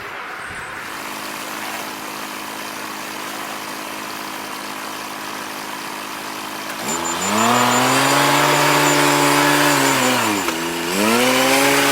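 Engine of farm machinery idling steadily, then revving up hard about seven seconds in. It drops briefly and revs up again near the end.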